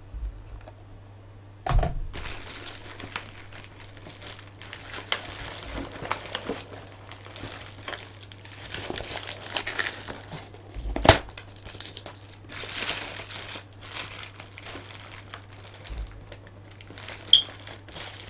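Packaging crinkling and rustling as it is handled and torn open by hand, with a few sharp clicks and one loud snap about eleven seconds in.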